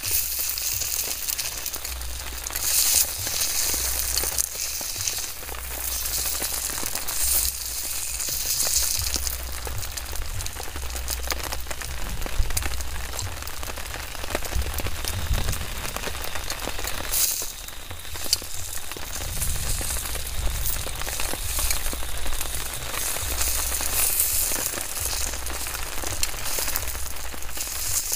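Steady heavy rain falling on a tent and tarp, a dense patter of drops on the fabric.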